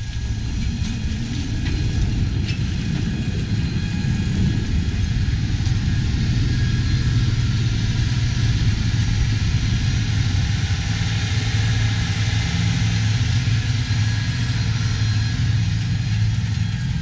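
A camera drone's propellers and motors running in flight: a steady low hum with a constant high whine over it.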